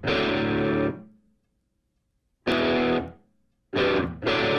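Background rock music: distorted electric guitar chords struck in short, abrupt hits separated by silent gaps, the longest gap about a second near the middle.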